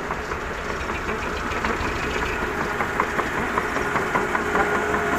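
Hino Dutro dump truck's diesel engine idling with a steady rattling clatter while its dump bed is raised.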